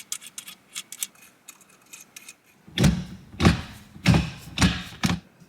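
Small metallic clicks and rattles from a short shifter being bolted up, then a series of about six louder knocks and clunks in the second half.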